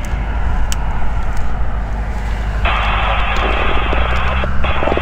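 A light aircraft's piston engine runs with a low, steady drone. About two and a half seconds in, crackly, tinny airband radio audio from a scanner cuts in and breaks off briefly near the end.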